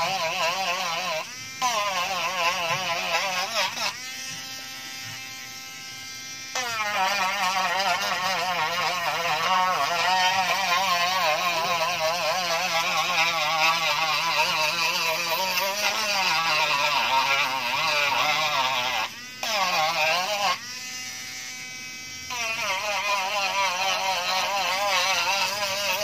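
Small handheld rotary tool with a drum bit grinding the frayed edge of a carbon fibre panel: a high motor whine whose pitch wobbles constantly as the bit bites the edge. Twice, around four seconds in and again a little after twenty seconds, it runs steadier and quieter for a couple of seconds, briefly off the work.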